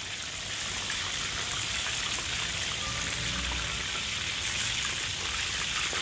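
Chicken pieces deep-frying in hot oil in a wok, a steady dense sizzle of bubbling oil, on the chicken's second fry of a double fry.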